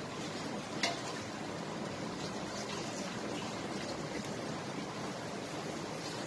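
Minced meat (keema) simmering in its own watery juices in a frying pan, a steady bubbling hiss as the water cooks off, with one sharp pop about a second in.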